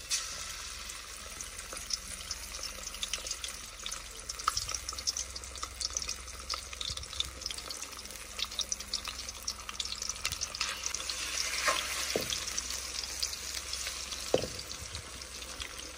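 Masala-marinated fish frying in hot cooking oil in an aluminium karahi: a steady crackling sizzle that grows a little louder a few seconds before the end. A few light knocks of a slotted spoon against the pan near the end.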